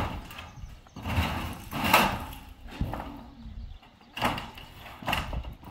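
Roofing work on corrugated metal sheets: about five short knocks and rustles at irregular intervals, from the metal sheets and plastic sheeting being handled and shifted.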